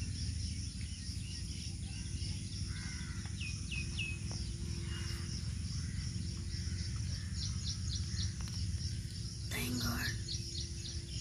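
Small birds chirping outdoors, with three short calls about three and a half seconds in and a quick run of high chirps near the end, over a steady low rumble.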